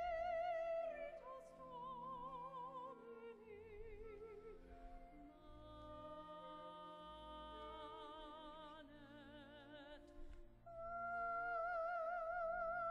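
Church music: a high solo voice sings slow, long-held notes with wide vibrato over sustained lower accompaniment. It dips briefly near the end, then comes back louder.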